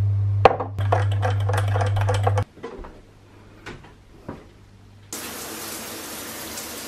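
A spoon stirring and clinking against a ceramic coffee cup, a rapid run of light clinks over a low steady hum, ending about two and a half seconds in. After a quiet stretch with a few faint knocks, an overhead rain shower starts running about five seconds in, a steady hiss of falling water.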